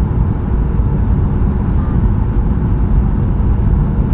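Steady roar of engines and rushing air heard inside the cabin of a Boeing 737-800 airliner in flight, with a few faint steady tones above the low noise.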